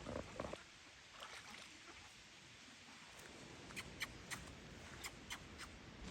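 Faint outdoor ambience with a few short, high ticks or chirps scattered through the second half.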